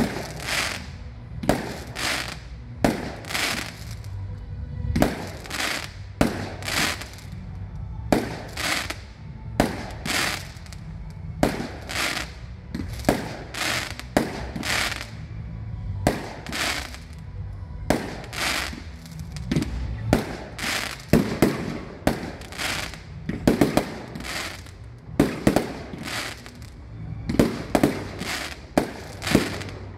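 Aerial fireworks shells bursting in a steady series of bangs, about one every second and sometimes two in quick succession, with the loudest bangs in the second half.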